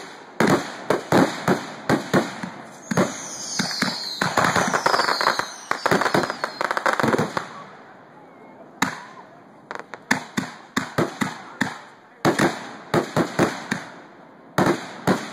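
Aerial fireworks bursting overhead in rapid volleys of sharp bangs, several a second, with short gaps between volleys. Dense crackling and a few high falling whistles fill the middle of the stretch.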